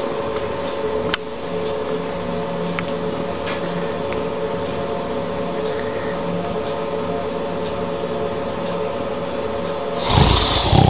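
A sleeping cat snoring: a steady, buzzing rasp, with one louder, breathy snore near the end.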